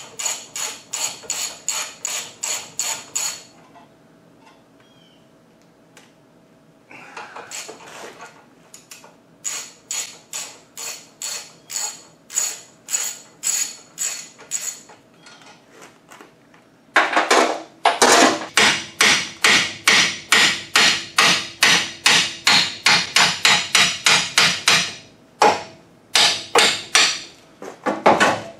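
Hand tool working on a car's front brake caliper: rapid, evenly paced metal-on-metal clicks, about four a second, in several runs with short pauses between them, loudest in the second half.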